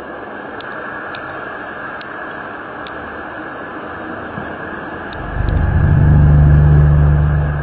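Steady hiss, then about five seconds in a loud, low, steady droning tone swells up, holds for about two seconds and fades near the end. It is the kind of deep drone passed around as a mysterious 'sky trumpet' sound.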